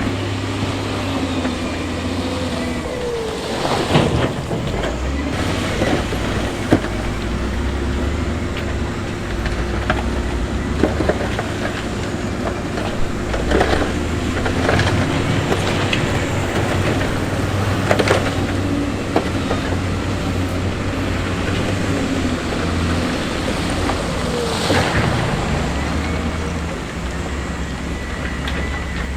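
Diesel engine of heavy earthmoving machinery running with a low hum that shifts in pitch as it works, with sharp knocks and clatters of stone several times.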